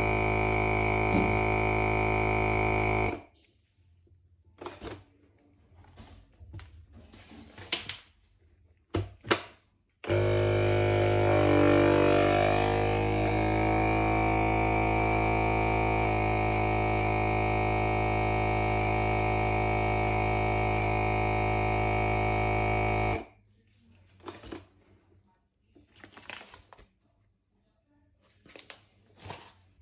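A steady, even drone with a fixed pitch, like a small electric appliance running. It stops about three seconds in and starts again about ten seconds in, runs for some thirteen seconds with a brief sag and recovery in pitch soon after starting, then cuts off. Light clicks and knocks fill the gaps.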